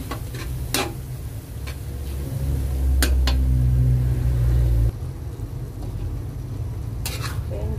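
A spatula scrapes and stirs corned beef in a metal wok with a faint sizzle, giving a few sharp scrapes. A loud low rumble swells about two seconds in and cuts off suddenly near the middle.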